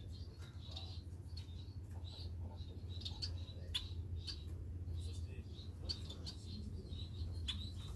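Society finches (Bengalese finches) giving short, high chirping calls, several in quick succession, mixed with sharp clicks.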